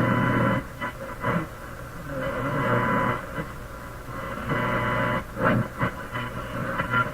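A Canadian General Electric G-40 tube radio's loudspeaker playing a noisy, crackling AM broadcast. Its sound is thin and muffled, with nothing above the upper midrange.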